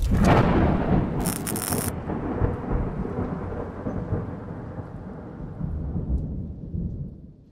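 Intro sound effect: a deep, thunder-like rumble that fades away slowly over about seven seconds, with a short bright hiss about a second in.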